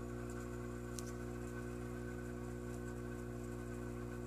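A steady hum made of several fixed low tones, unchanging throughout, with one faint sharp click about a second in.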